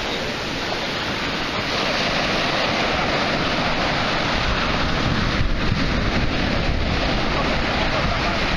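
Sea surf breaking and washing over the shallows, with wind buffeting the microphone. A steady, even rush of noise.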